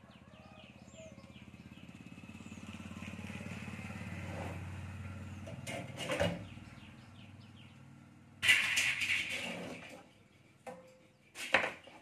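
A passing motor vehicle engine, rising and then fading over the first six seconds. Then the clicks and a loud metallic rattle of a table fan's wire grille being unclipped and pulled off, about eight and a half seconds in, with one more sharp click near the end.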